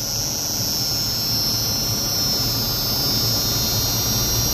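Inverter AC rotary compressor running steadily on a bench test, driven by the repaired inverter PCB, with a steady high whine over a low hum; the even running is the sign that the board is working. A low mains hum comes in about four seconds in.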